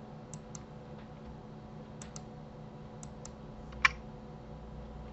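Computer keyboard keys and mouse buttons clicking: three quick pairs of clicks, then one louder, sharper click nearly four seconds in. A faint steady electrical hum lies underneath.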